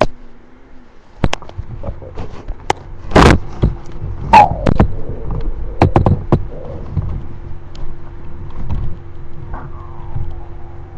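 A hungry stomach gurgling and rumbling, with several sharp thumps and knocks mixed in over a faint steady hum.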